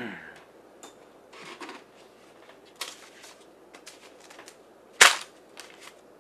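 Sharp cracks: a loud one about five seconds in and another at the very end, with a few fainter clicks and knocks before them.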